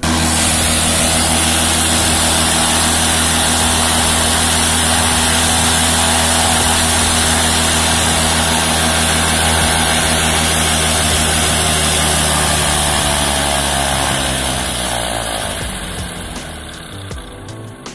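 Paramotor engine running steadily on the ground with its propeller spinning, then slowing down and dropping in pitch and loudness over the last few seconds.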